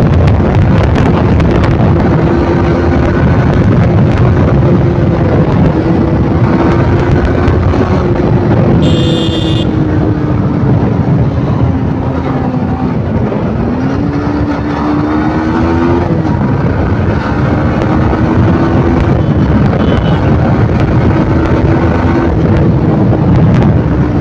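Yamaha motorcycle engine running at road speed, with wind rushing over the microphone. The engine note sags as the bike slows, jumps up at a downshift about thirteen seconds in, then climbs as it accelerates again. A short high-pitched tone sounds about nine seconds in.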